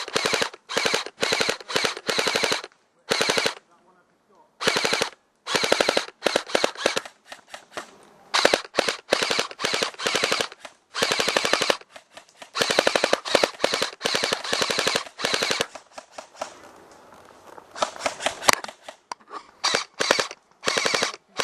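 Airsoft rifle firing full-auto bursts: a fast rattle of shots, burst after burst, some short and some over a second long, with brief pauses between them.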